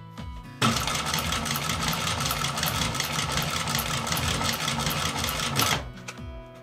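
TAKING TK-341N industrial sewing machine stitching leather at speed. It starts about half a second in, runs with a rapid, even stitch rhythm for about five seconds, and stops suddenly near the end.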